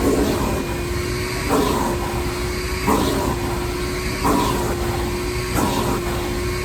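Shop vac running with a steady motor whine while its nozzle is worked in even strokes, the suction noise surging about every second and a half.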